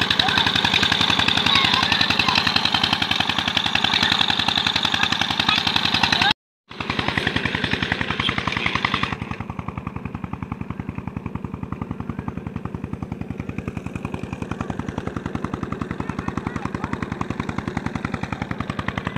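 Tubewell pump's engine chugging steadily with rapid, even pulses, and water gushing and splashing over it in the first part. After a brief dropout about six seconds in, the splashing fades out a few seconds later and the engine's chugging runs on alone.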